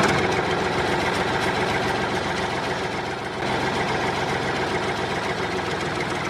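A tractor engine running steadily.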